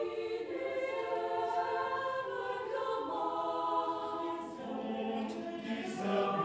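Choir singing slow, sustained chords that move to new harmonies every second or two.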